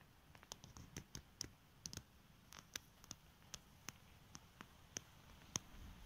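Faint, sharp, irregular clicks, two or three a second, over near silence.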